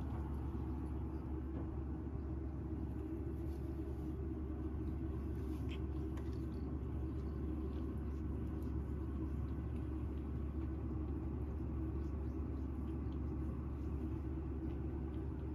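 Steady low rumble of background noise with a few faint short clicks.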